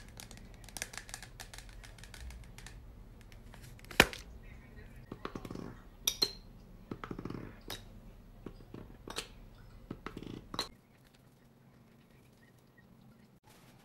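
Handling noise from a plastic foam-pump cleanser bottle: scattered sharp clicks and knocks, the loudest about four seconds in. The noises stop a little before the end.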